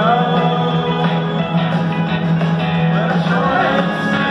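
Live country band playing through a large arena sound system, with guitars and a sung lead vocal, heard from among the audience.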